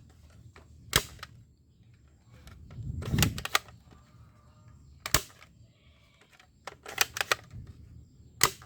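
Sharp plastic clicks and clacks of toy guns being handled, coming singly every couple of seconds, with a quick run of several clicks about seven seconds in.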